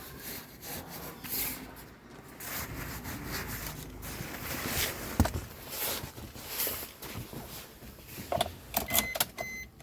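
Irregular clicks, knocks and rustling of hands handling things inside a car. Near the end a short electronic beep starts repeating, like a car's warning chime.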